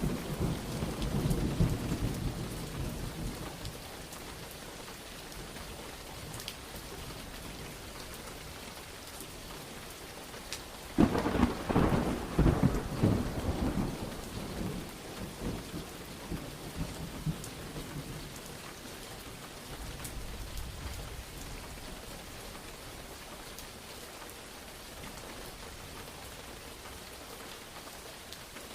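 Steady heavy rain falling throughout, with the tail of a thunder rumble fading over the first few seconds. About eleven seconds in a loud thunder clap breaks suddenly and rolls on for a few seconds before dying back to the rain.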